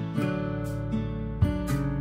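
Background music of strummed acoustic guitar, a new chord struck twice.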